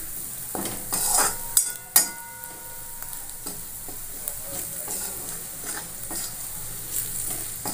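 Onion and spice masala sizzling in hot mustard oil in an aluminium kadhai while a metal spatula scrapes and stirs it. About two seconds in, metal strikes the pan with a clang that rings for about a second.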